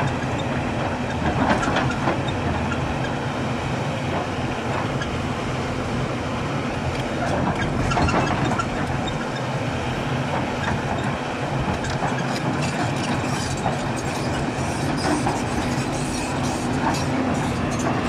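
Hyundai crawler excavator's diesel engine running steadily under load as the bucket digs and scrapes earth and stones, with scattered clanks and rattles of rock and steel, busiest about a second in, around the middle, and near the end.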